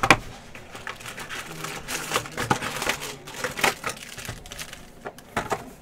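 A sharp tear right at the start, then irregular crinkling and rustling as foil-wrapped trading card packs are handled while being taken out of a cardboard box.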